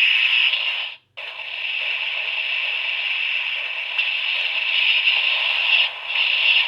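Electronic sound effect from the Kamen Rider Blade Blay Buckle toy belt's small speaker: a steady hissing buzz that cuts out for a moment about a second in and dips briefly near the end.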